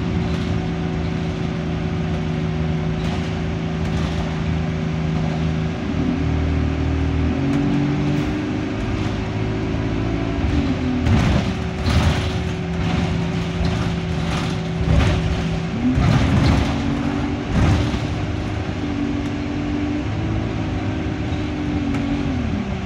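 Alexander Dennis Enviro200 bus's diesel engine and Allison automatic gearbox heard from inside the saloon. The engine note holds steady, climbs as the bus pulls away, then drops back, twice, over a constant whine and some body rattles. The gearbox is in limp mode with no kickdown, as the owner describes it.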